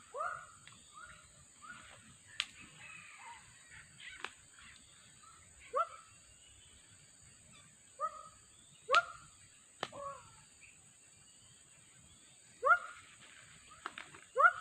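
Repeated short animal calls, each a quick rising note, coming in runs at the start, twice in the middle and again near the end, with a few sharp clicks between them over a faint steady high hiss.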